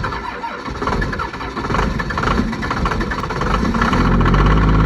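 An engine starting, with irregular uneven sound at first, then settling into a steady low idle about four seconds in.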